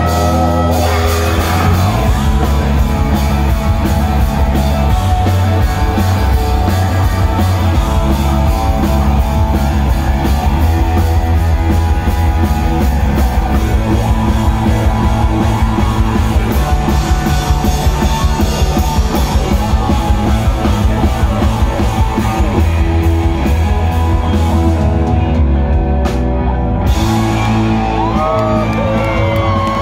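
Live rock band playing loudly: electric guitar, bass and drum kit with a steady beat, and singing over it. The drums thin out briefly near the end.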